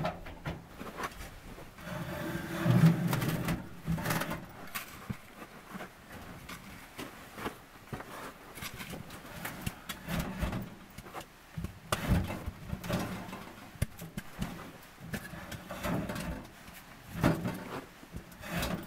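Irregular metal clunks and knocks as a sheet-metal wood stove, its pots and chimney pipe are handled and set up, with a louder low-pitched sound about three seconds in.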